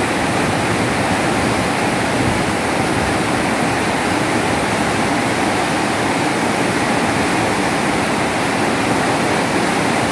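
Muddy tidal water rushing through an open bay of a sluice gate, a loud, steady churning rush of whitewater. The water pours through because a damaged gate leaf cannot close against the rising tide.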